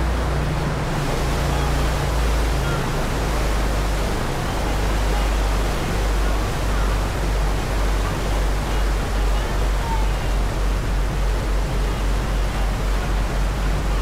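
Passenger ferry under way: a steady rush of wind and churning wake water over a low engine rumble. From about halfway through, the low rumble throbs in a regular pulse of roughly two to three beats a second.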